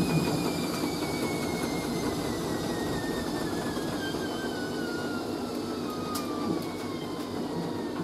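Hoover A3060 washing machine winding down from its final spin: the drum and motor whine falls steadily in pitch as the drum slows, with a few faint clicks about six seconds in.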